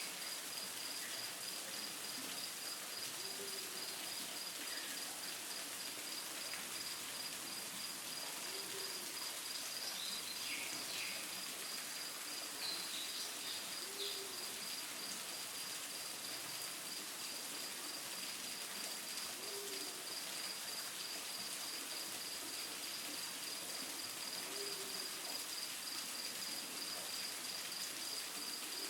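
Natural ambience: a steady rush of falling water, an insect trilling steadily, and a bird giving a short low hoot about every five to six seconds. A few brief bird chirps come about a third of the way in.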